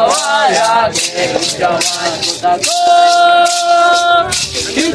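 Ritual chant sung with maracás shaken in a steady beat; the singing line rises and falls and holds one long note in the middle.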